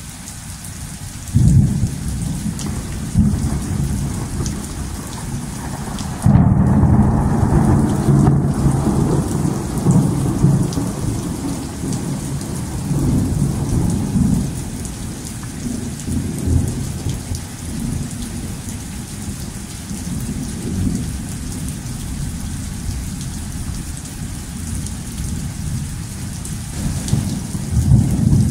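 Thunder rumbling over steady rain. A sudden clap comes about a second and a half in, then a louder one at about six seconds that rolls on and slowly fades, and a fresh rumble builds near the end.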